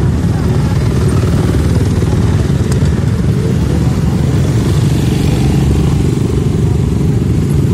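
Engines of several motocross bikes running together, a loud, steady drone.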